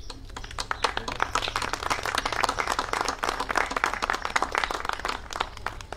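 A small group applauding, starting about half a second in and dying away near the end.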